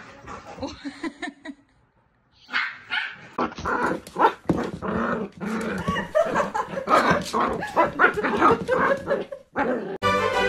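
Dog barking and yipping over and over, with some whimpering.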